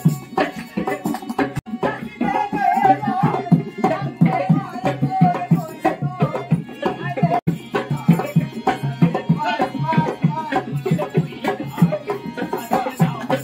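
Live folk dance music: a drum beaten in a quick, steady rhythm, with singing over it at times.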